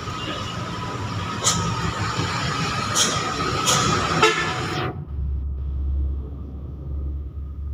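Wind and road noise from riding a motorcycle, with a few sharp knocks in the first few seconds. About five seconds in, the hiss drops away abruptly and a low wind rumble on the microphone takes over.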